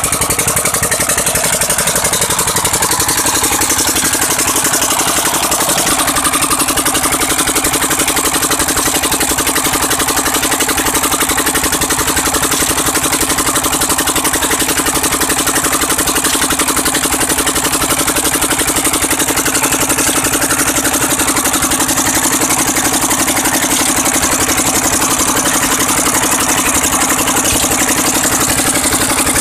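Single-cylinder stationary diesel engine running steadily, driving a belt-driven tubewell water pump.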